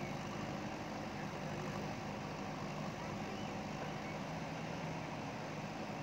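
JCB ecoXcellence backhoe loader's diesel engine running steadily at an even pitch.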